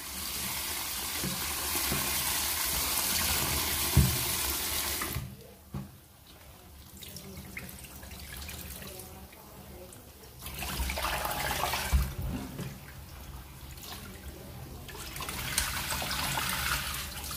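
Tap water running into a plastic basin of genjer stems in a stainless steel sink while hands rub and swish the vegetables, splashing. The flow is loudest for the first five seconds, softer in the middle with splashes and a few knocks against the sink, and loud again briefly around eleven seconds and near the end.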